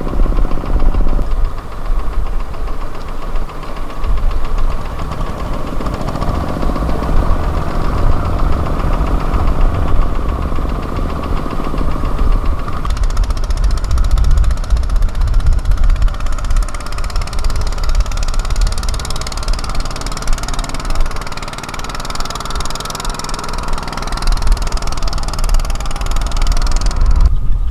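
Engine of a mini tractor or power tiller running steadily while driven through mud and water. A higher hiss joins it about halfway through.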